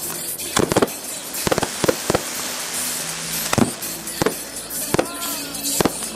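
Aerial firework shells bursting in a series of about ten sharp bangs, irregularly spaced, with a hiss between them.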